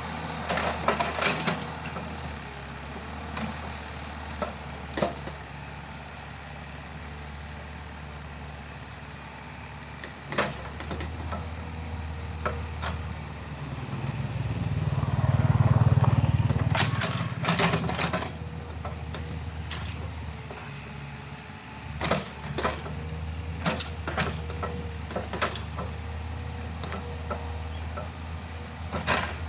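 Excavator engine running steadily, building up louder for a few seconds about halfway through as it works under load, with scattered sharp clanks and knocks.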